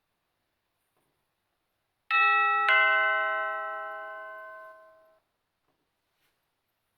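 Two-note doorbell chime, ding-dong: a higher note about two seconds in, then a lower one just after. The notes ring out and fade over about two and a half seconds.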